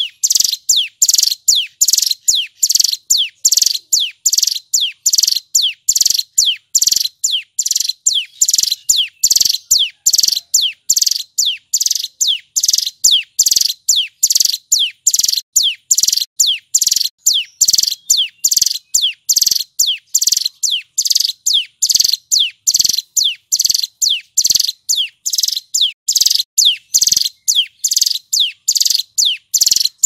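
Male ciblek gunung, a prinia, singing a long, unbroken series of loud, sharp, high notes, each one sweeping quickly downward in pitch, repeated evenly at about three a second.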